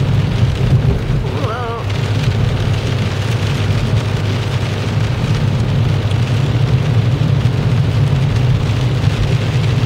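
Car driving on a wet road in the rain: a steady low drone of engine and tyres under the hiss of spray and rain. About a second and a half in, a brief wavering tone sounds over it.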